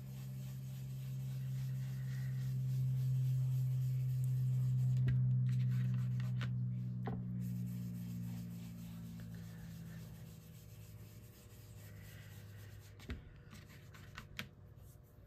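Darker blue ink being rubbed onto paper by hand, a soft scuffing. Under it a low steady hum swells and fades away over the first ten seconds, and there are a few light taps.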